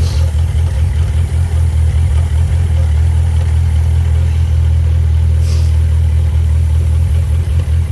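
Suzuki GSX1250FA's inline-four engine idling steadily. A short hiss comes about five and a half seconds in.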